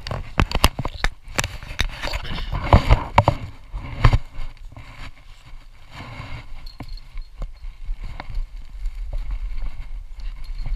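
Chain-link fence rattling and clanking as it is handled and climbed, mixed with footsteps and rustling in dry fallen leaves. The knocks come thick and fast for the first four seconds, then thin out to scattered ones.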